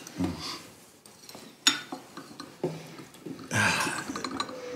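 Glass and china tableware on a table: a glass knocking against its saucer in a couple of sharp clinks. A short rustling noise follows, a little after three and a half seconds in.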